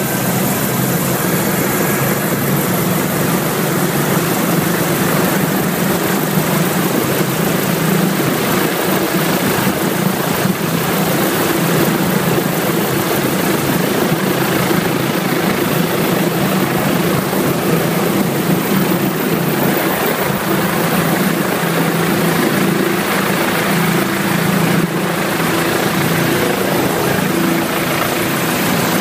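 Bell 407 helicopter's turboshaft engine and rotor running steadily on the ground, heard from inside the cabin as a constant loud drone with a rushing hiss.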